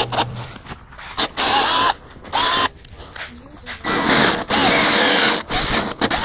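Cordless drill boring a hole into a wooden butcher-block bench top, run in several short bursts, the motor whine rising as it spins up each time.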